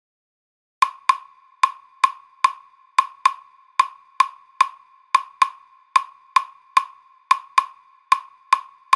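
Claves clicking out the salsa clave rhythm alone: five bright wooden strokes to each two-second bar, repeated about four times. They start about a second in, after silence.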